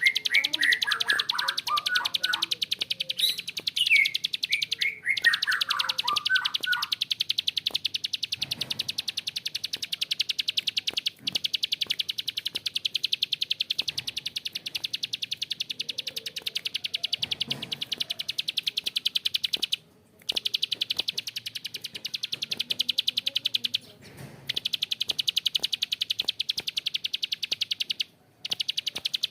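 Prenjak klik (a prinia) giving a long, harsh, rapid clicking trill, the 'ngebren' call, broken only by a few brief pauses. In the first few seconds, falling chirped phrases run over it.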